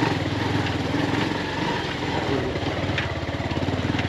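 Bajaj Pulsar 220F motorcycle's single-cylinder engine running steadily under way on a stony dirt track, with a brief click about three seconds in.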